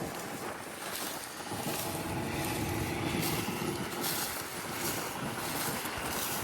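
Farm harvest machinery running steadily, with repeated gusts of wind noise on the microphone.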